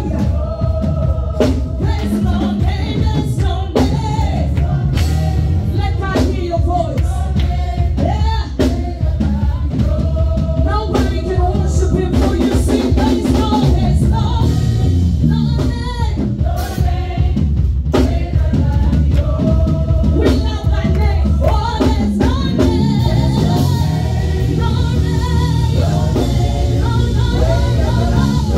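Live gospel worship song: a lead singer and backing vocalists singing over keyboard and drums, with no break.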